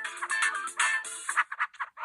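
Preloaded ringtone on a Huawei U5310 phone: busy electronic music with a quick beat, which thins out in its last half second as the ringtone ends.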